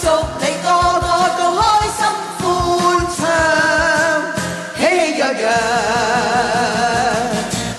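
Upbeat festive Cantonese pop song with a steady beat, in a break between sung lines; the melody is carried in held notes with a wavering vibrato.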